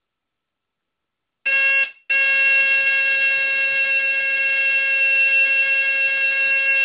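Mid-1970s Sunbeam Centurion smoke alarm going off in a cigarette-smoke test. Its horn starts about a second and a half in with a loud steady high-pitched tone, breaks off for a moment, then sounds continuously.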